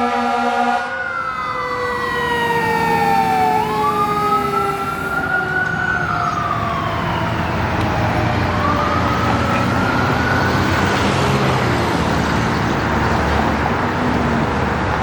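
A fire engine's Federal Q mechanical siren, winding down, then winding up twice and slowly coasting down each time, with an air-horn blast that cuts off about a second in. Truck engine and road noise build underneath as the engine passes.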